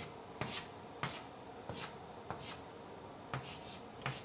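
Chalk drawing on a blackboard: a run of short chalk strokes, irregularly spaced about half a second apart.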